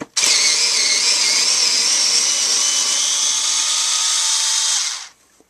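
Genesis 7.2-volt lithium-ion cordless screwdriver running in low speed, driving a screw into wood. The motor starts at once, runs at a steady whine for about five seconds, and stops abruptly near the end.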